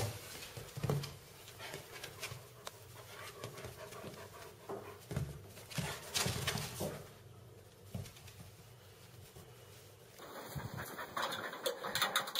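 A dog panting and sniffing in short, irregular breaths.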